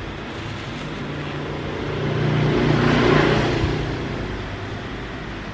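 A motor vehicle passing by, its sound swelling to a peak about three seconds in and then fading, over a steady low hum.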